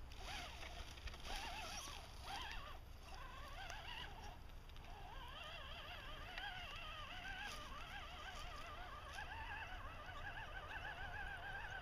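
Whine of an Axial SCX10 RC rock crawler's electric drivetrain as it creeps up a steep rock face, its pitch wavering up and down as the throttle and load change.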